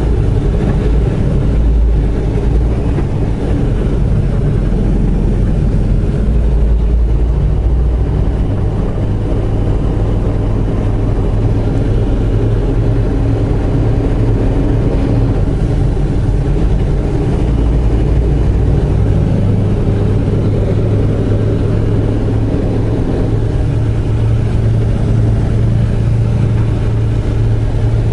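Semi-truck diesel engine running, heard from inside the cab as the truck drives slowly at low speed. The engine note steps up about two-thirds of the way through.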